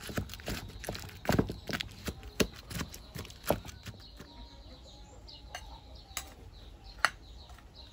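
Cookware and utensils knocking and clicking irregularly, several sharp knocks a second, for about the first four seconds. After that it quietens, leaving faint short bird chirps.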